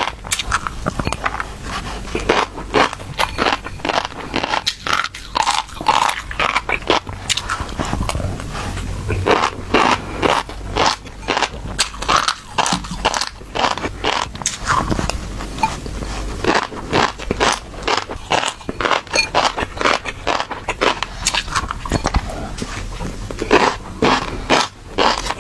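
Fish roe crackling and popping close to the microphone: a dense, irregular stream of small crunchy clicks.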